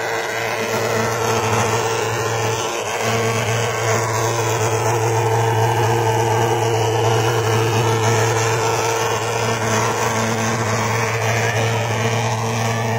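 Handheld Vectorfog pulse-jet thermal fogger running steadily while it sprays fog, a loud continuous drone at one pitch with a brief dip about three seconds in.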